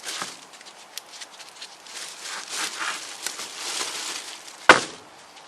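Workbench handling noises: scraping and rustling of parts and tools with a few small clicks, then one sharp knock near the end, the loudest sound.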